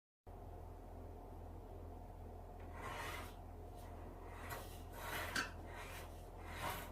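A few short scraping rubs of something being handled or worked, over a steady low electrical hum.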